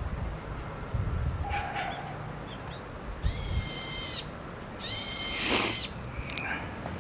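A bird calling: two long, drawn-out calls of about a second each, with a few short, faint calls before and after.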